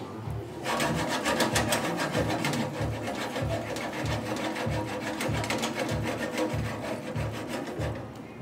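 Diabla shrimp in sauce sizzling and crackling in a skillet over a gas flame while a wooden spoon stirs and scrapes the pan, starting about half a second in. A steady beat of background music runs under it.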